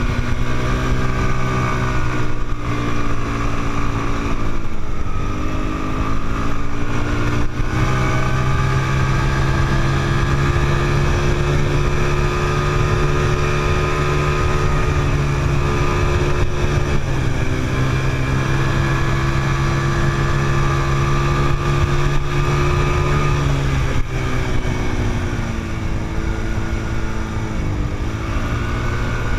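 Quad bike engine running hard under the rider, heard up close, with its pitch dropping and climbing back several times along the way, over a steady low rumble.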